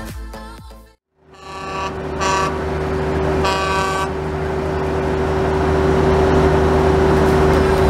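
Car horns honking in two short blasts over a steady vehicle engine drone.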